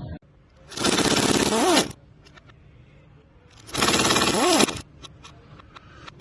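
A power wrench run in two bursts of about a second each, hammering nuts or bolts loose on the turbocharger mounting, its pitch bending as the trigger is let go at the end of each burst. Faint ticks of tools and metal parts between the bursts.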